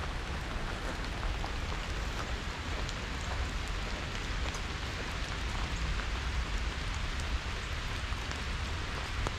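Steady rain falling on leaves and the ground, with scattered drops ticking, over a low rumble.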